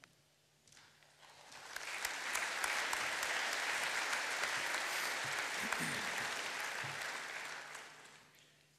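Audience applauding, swelling up over about a second, holding steady, then dying away near the end.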